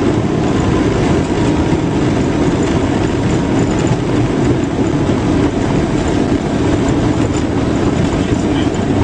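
Steady rumble of a Boeing 737's engines and its wheels on the runway, heard inside the cockpit during the landing rollout.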